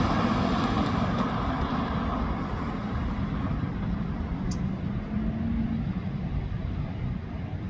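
Road traffic: a passing vehicle's engine rumble fading away, leaving a steady low traffic rumble with a small click near the middle.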